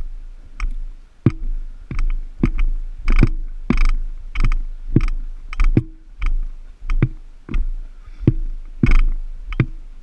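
Regular thuds, about three every two seconds, over a steady low rumble.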